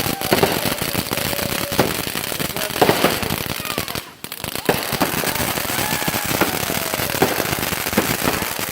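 Firework fountains spraying sparks with a dense, continuous crackle and rapid pops, dipping briefly about four seconds in.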